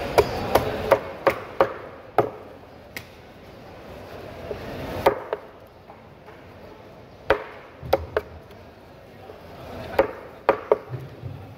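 A knife blade striking a wooden chopping block while cutting through a whole ruby fish. About six quick knocks come at the start, then a few scattered strokes, then a quick group of four near the end.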